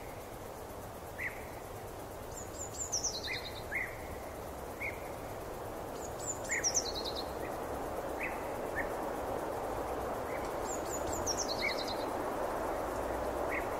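Forest ambience: a small bird repeats a short song of quick high notes stepping down in pitch about every four seconds, with scattered single chirps in between. Under it runs a steady rushing hiss that grows slightly louder toward the end.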